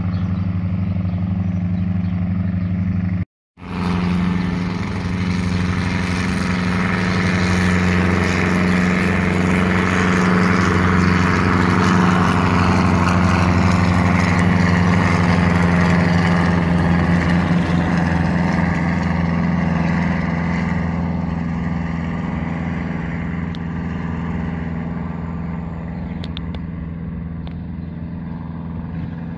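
Light piston helicopter's engine and rotor running with a steady drone. After a brief cut about three seconds in, it grows louder as the helicopter climbs out and passes, peaks about halfway, then fades as it flies away.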